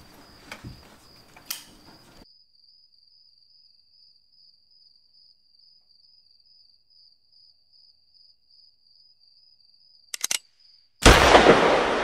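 Soft footsteps at first, then crickets chirping steadily outside at night. Near the end come three quick clicks and then a sudden loud gunshot bang that fades slowly.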